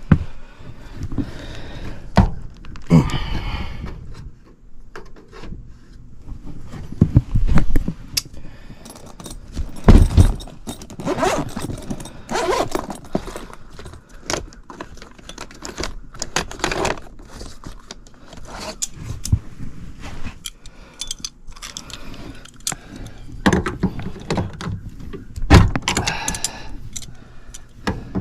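Hands and tools working on a clogged air-handler condensate drain line: irregular knocks, clatter and scrapes as the pipe and fittings are handled, with a few louder thuds.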